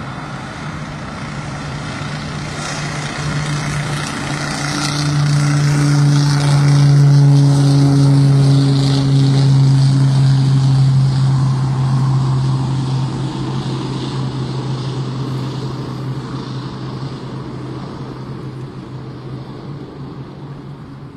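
Single-engine firefighting floatplane's engine and propeller, a steady drone that grows louder as it skims the water scooping a load, loudest about a third of the way through, then slowly fading as it pulls away.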